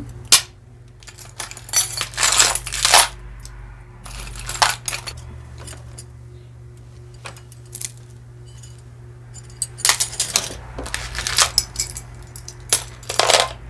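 Pieces of costume jewelry clinking and rattling as they are handled and dropped into a box, in several bursts of metallic clicks with quieter pauses between.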